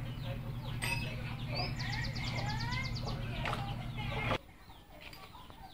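Chickens clucking, with repeated short calls that rise and fall in pitch, over a steady low hum that cuts off abruptly about four seconds in.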